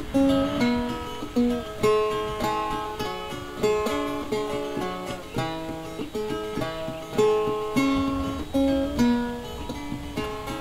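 Background music: a plucked acoustic guitar playing a steady picked melody.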